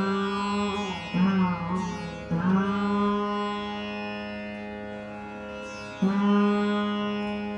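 Rudra veena strings plucked. Each note sustains long and rings with many overtones, with fresh plucks about one, two and six seconds in and a slide in pitch between the early notes, typical of slow Dhrupad playing.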